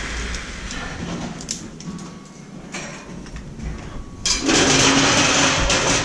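Metal scaffold parts clanking as they are handled on a metal deck, then about four seconds in a loud harsh scraping noise with a steady low hum that lasts under two seconds.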